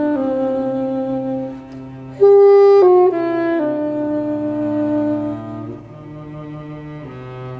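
Saxophone playing a slow melody of long held notes, louder for a short phrase about two seconds in and softer near the end, over sustained low cello notes.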